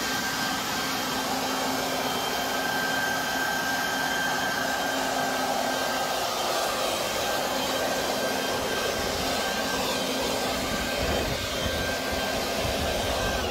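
Harbor Freight Portland 12-amp corded electric leaf blower (3-in-1 blower/vacuum/mulcher) running steadily in blower mode. A strong rush of air carries a steady high motor-and-fan whine.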